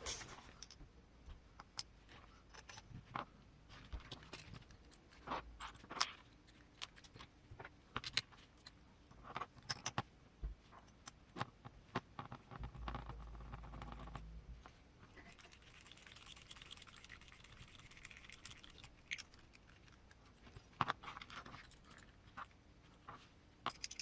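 Small metal and plastic parts of an RC transmission being handled and fitted by hand: scattered faint clicks and taps, with a stretch of soft scraping about two-thirds of the way through.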